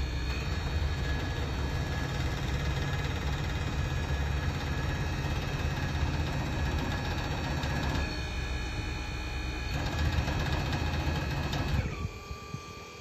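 Hydraulic power unit for container lifting jacks running steadily, electric motor and pump driving the jacks to raise the container, with a low rumble and a thin whine. It cuts off near the end.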